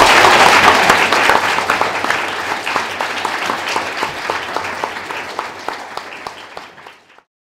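Audience applauding, loudest at first, then fading steadily away and stopping shortly before the end.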